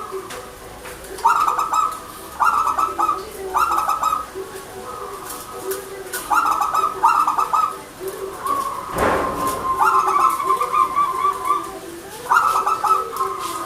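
Zebra doves (perkutut) cooing, a run of short repeated phrases, some ending in a trill, over a lower cooing note. A brief rush of noise comes about nine seconds in.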